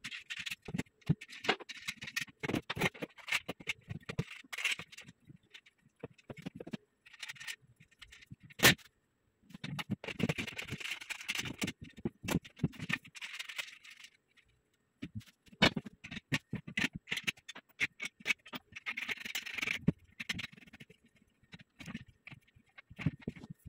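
Steel bed-frame rails being handled and fitted together: irregular metal scraping, clinking and knocking, with one sharp knock about nine seconds in.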